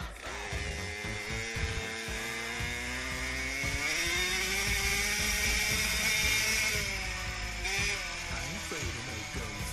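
Small 50cc two-stroke youth dirt bike engine pulling under throttle, its pitch climbing slowly for several seconds, then dropping about seven seconds in as the throttle comes off, with a short blip about a second later.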